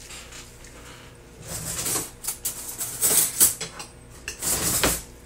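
Hands mixing seasoned chopped pork in a bowl, with irregular scraping and clattering against the bowl. The loudest bursts come about three seconds in and again near the end.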